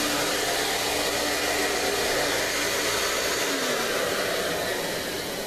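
Steady, loud rush of an electric household appliance's motor and airflow, which cuts off abruptly at the end.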